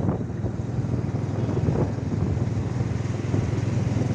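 Motorcycle engine running steadily at cruising speed, with a constant low hum, heard from the rider's seat.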